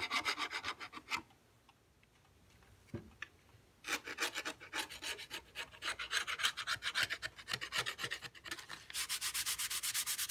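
A flat metal blade scraping dry, brittle old hide glue off old wood in quick, rapid strokes, with a pause of a couple of seconds early on. Near the end this gives way to hand sanding with 120-grit sandpaper in fast, even back-and-forth strokes.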